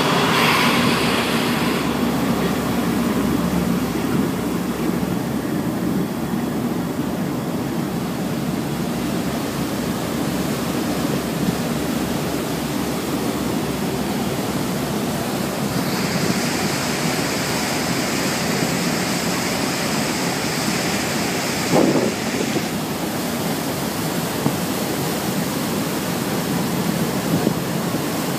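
Steady rushing of water churned up along the hull and in the wake of a patrol gunboat running at speed, mixed with wind and the low drone of its engines. The hiss grows brighter for several seconds past the middle, and there is a single short knock.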